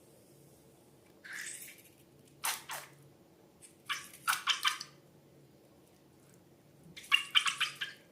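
Slime being squished by hand, in four short bursts of rapid crackles about a second and a half apart; the last, near the end, is the loudest.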